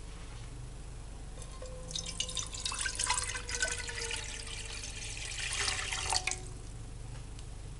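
Water being poured into an empty pot. The splashing pour starts about a second and a half in, runs for about five seconds, then stops.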